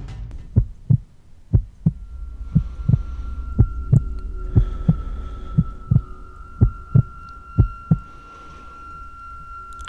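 Heartbeat sound effect: paired low thumps about once a second that stop about eight seconds in, over a steady high tone that comes in about two seconds in.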